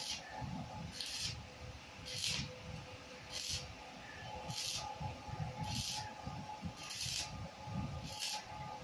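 Stick (arc) welding on square steel tubing: the arc crackles and hisses in short bursts about once a second, over a faint steady hum.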